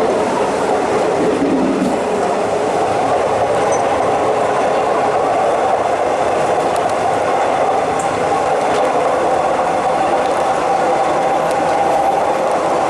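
Suburban commuter train running at speed on an elevated line: steady rail and running noise, with a steady hum that grows stronger a few seconds in.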